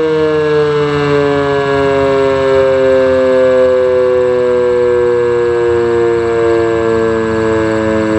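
Sentry 10V2T outdoor warning siren sounding with only one of its two motors working, so it gives a single tone rather than its usual two. The tone is really loud and steady, its pitch sliding slowly down and levelling off.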